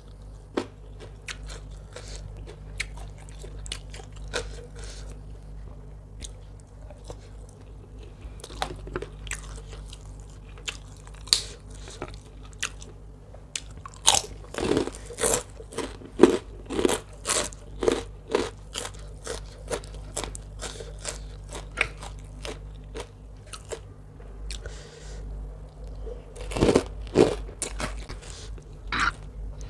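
Close-miked chewing of a mouthful of spicy rice-noodle salad with raw vegetables: crisp crunches and wet mouth clicks. It becomes louder and denser about halfway through, with another loud run near the end.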